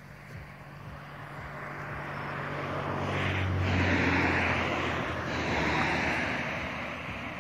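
An engine passing by: a steady low hum with a rushing noise that slowly swells to its loudest about four seconds in, then gradually fades.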